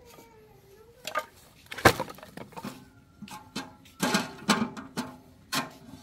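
An irregular series of sharp knocks and cracks, about a dozen, the loudest just before two seconds in and a cluster around four to five seconds in.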